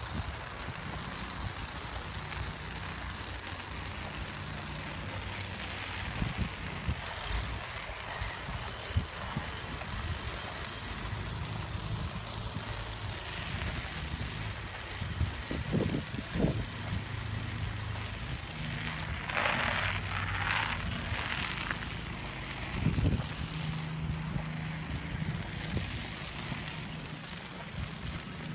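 Steel chain dragging over asphalt behind a dog's weight-pull harness, rattling and scraping continuously as the dog pulls it along as a resistance load.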